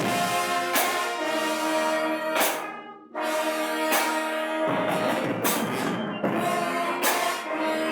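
High school marching band playing: the brass section holds loud sustained chords, punctuated by sharp drum hits, with a short break about three seconds in.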